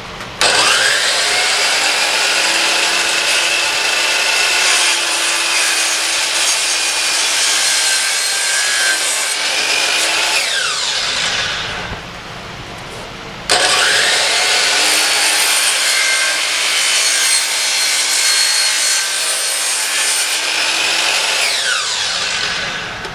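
Sliding compound miter saw cutting 3/4-inch pine plywood, twice. Each time the motor starts suddenly, runs loud through the cut for about ten seconds, then winds down with a falling whine as the blade spins down.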